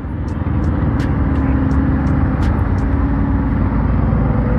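Honda CB300R's single-cylinder engine running steadily under way, its sound building over the first second and rising slightly in pitch near the end.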